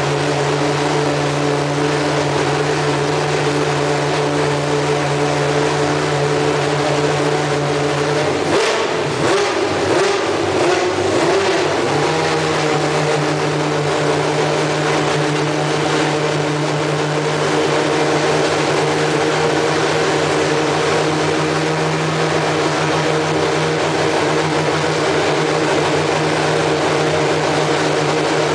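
Superleague Formula car's V12 engine running at a steady fast idle of about 3,000 rpm while warming up from cold. About nine seconds in, the note wavers unevenly for roughly three seconds, then settles back to the steady idle.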